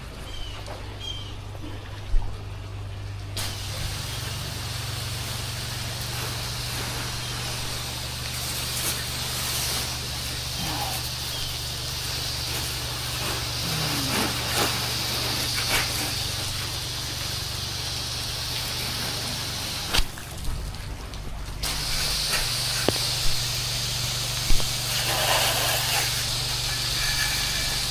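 Pressure washer running steadily, its engine humming under the hiss of a water spray. The spray starts a few seconds in, stops for about a second and a half later on, then starts again.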